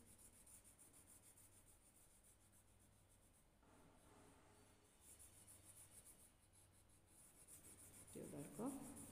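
Faint scratchy rubbing of an orange crayon stroked back and forth across paper while colouring in a circle. A brief faint voice-like sound comes near the end.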